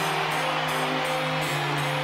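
Background music: long held notes over a low note that steps down twice.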